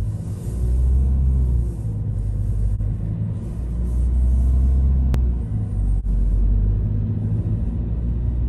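Background music with a deep, droning bass that shifts pitch every second or two, with a single click about five seconds in.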